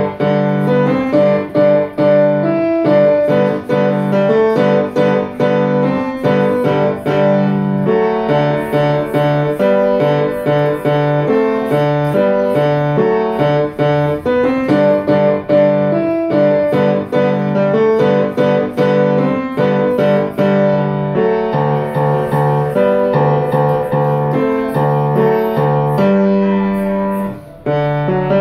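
Grand piano played solo, a steady stream of chords and melody over repeated bass notes, with a brief break near the end.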